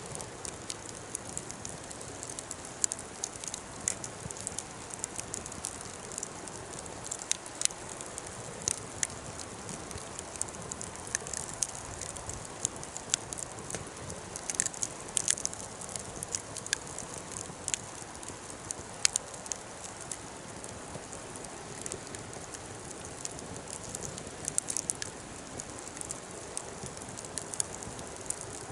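A wood fire crackling, with irregular sharp pops several times a second over a steady background rush.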